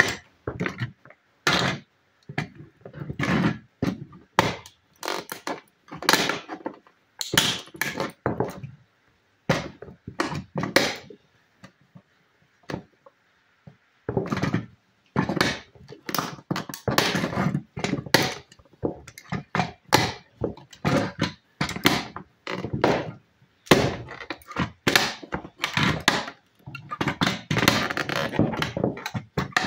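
Studded Puma Ultra football cleats stamping down on a toy school bus on a wooden floor: irregular clusters of knocks and thuds, with a pause of a couple of seconds near the middle.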